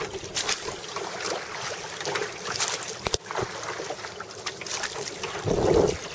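Wind buffeting the microphone over choppy sea water sloshing against a wooden Hankins lifeguard rowboat, with scattered sharp knocks. A louder buffet of wind comes near the end.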